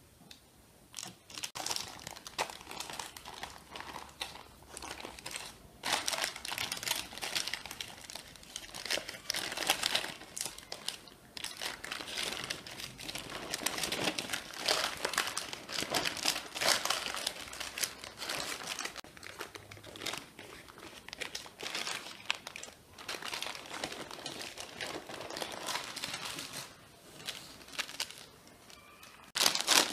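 Crinkling and rustling of a sheet of wrapping, such as baking paper or cling film, handled in irregular bursts. It starts about a second in and eases off shortly before the end.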